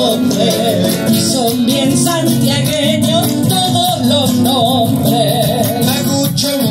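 A gato, an Argentine folk song, sung live by a woman and a man in duet with wavering vibrato, over strummed acoustic guitars.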